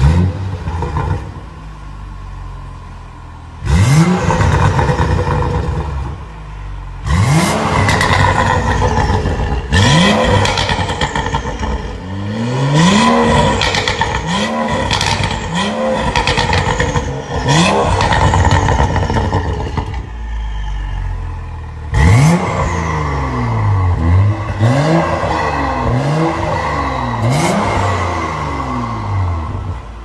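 BMW M235i's turbocharged 3.0-litre straight-six through an Armytrix valvetronic exhaust, with the car standing still: it starts with a brief flare of revs, settles to idle, then is revved sharply about a dozen times, each rev rising and falling, the last several in quick succession near the end.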